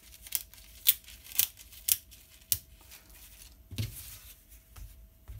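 Thin ripstop polyester sail fabric crackling as it is pulled up off a glass cutting surface: about five crisp snaps in the first two and a half seconds. A soft thump follows near four seconds in, as a fabric weight bag is shifted.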